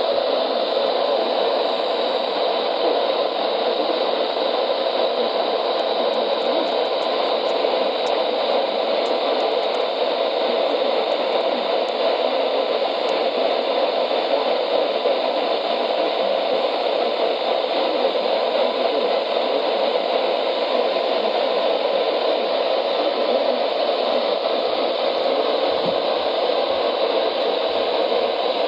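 Steady radio static hiss from a NOAA Weather Radio receiver, with no broadcast audio coming through. The noise is even and unbroken.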